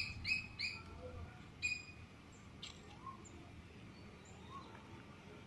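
Birds chirping: a quick run of repeated chirps, about three a second, that stops about a second in, followed by a few scattered single calls over faint background noise.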